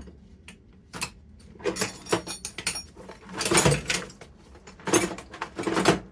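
Old metal hand tools, screwdrivers among them, clattering and clinking as they are rummaged out of the tool chest and set down. It comes as a run of clatters, the loudest about halfway through and again near the end.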